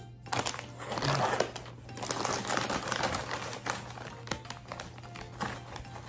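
A plastic potato chip bag crinkling and crackling as it is pulled open and handled, with many small irregular crackles.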